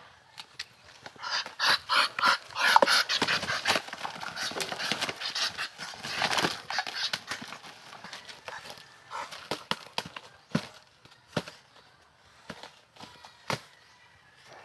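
A duck and a rooster fighting: several seconds of rapid, rhythmic flapping and scuffling, then a few scattered sharp taps.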